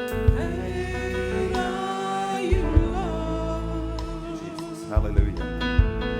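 Slow gospel worship music: held chords over a bass line, with a voice singing long, wavering notes from about halfway through and a few soft thumps.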